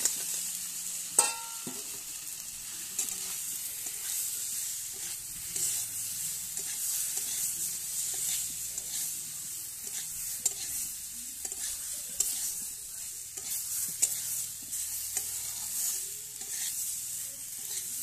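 Boiled whole potatoes sizzling in hot oil and spice paste in a metal kadai while a metal spatula stirs and scrapes them around the pan, with many small scraping clicks over a steady sizzle. A sharp metal clink rings out about a second in as the potatoes go in.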